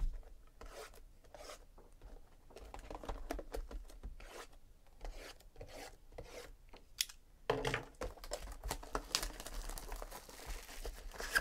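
Plastic shrink-wrap being torn and peeled off a cardboard trading-card hobby box. Light handling clicks and rustles at first, a louder burst about seven and a half seconds in, then steady crinkling of the wrap.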